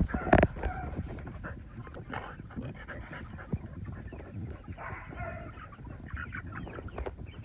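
A flock of young chickens making scattered short calls, with rustling and a couple of knocks close to the microphone in the first half second.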